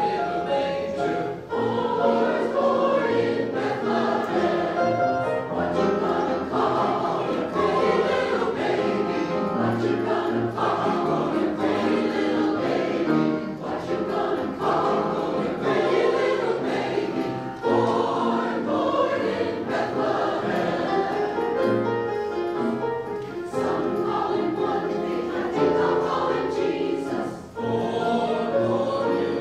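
Mixed choir of women's and men's voices singing a Christmas spiritual in several parts, phrase after phrase, with short breaths between phrases.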